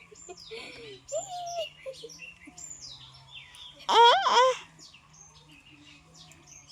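Several birds chirping and whistling in short calls, with one much louder, brief pitched call about four seconds in. A steady low hum runs underneath.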